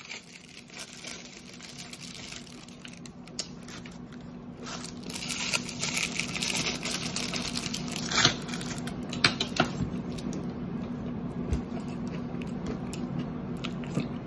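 Shiny chocolate wrappers crinkling and tearing as they are unwrapped by hand. The rustling grows louder about five seconds in, with a few sharp crackles.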